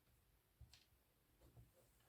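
Near silence with one faint sharp click a little over half a second in and a few softer ticks later.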